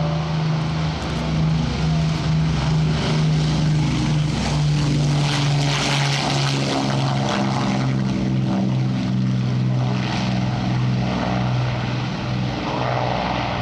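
Avro Lancaster's four Merlin V12 engines at takeoff power as the bomber makes its takeoff run and lifts off. The engine note is loudest as the aircraft passes about halfway through and drops slightly in pitch as it goes by.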